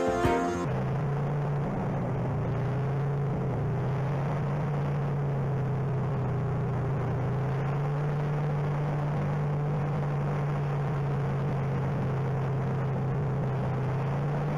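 Vintage Ski-Doo snowmobile two-stroke engine running at a steady, unchanging speed while riding, taking over from music within the first second.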